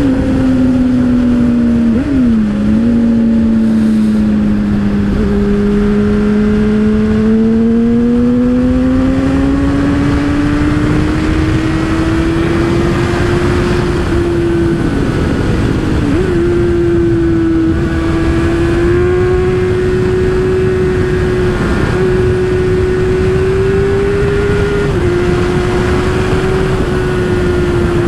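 Motorcycle engine running steadily under way, its pitch slowly sinking and then climbing, with a few brief dips and small steps as the throttle changes, over steady wind rush on the microphone.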